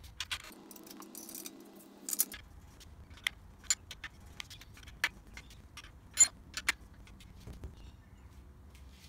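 Metal clinks and taps of nuts, bolts and a spanner as a small engine is bolted down onto a cylinder mower's deck: a string of sharp separate clicks, the loudest about six seconds in.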